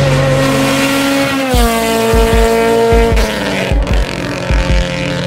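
A car engine revving, its pitch dropping about a second and a half in and again near three seconds, over deep repeated bass thumps, as in an edited intro soundtrack.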